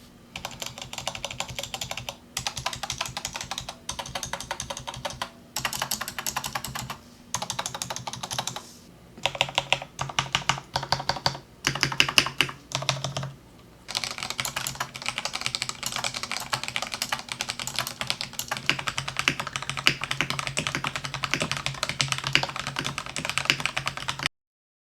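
Typing on a Corsair K68 mechanical keyboard with Cherry MX Red switches, in several short runs of key clacks. The first runs are the stock modifier keys. After a short break about nine seconds in come the modifiers with lubed, clipped and balanced stabilizers. A long unbroken run of typing follows from about fourteen seconds in.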